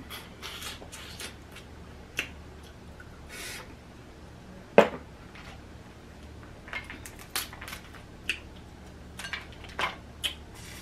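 Snow crab leg shells cracking and snapping as they are broken apart by hand, with chewing and wet mouth sounds between. The loudest crack comes a little before halfway, with a cluster of smaller cracks and clicks in the second half.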